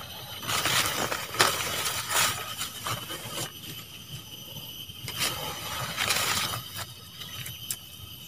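Two spells of rustling noise, one about half a second in and one about five seconds in, over a steady high drone of insects.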